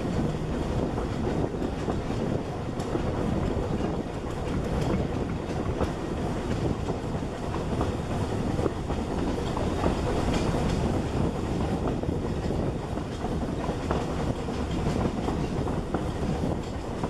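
Narrow-gauge passenger carriage running along the track: a steady rumble from the wheels on the rails, with occasional faint clicks.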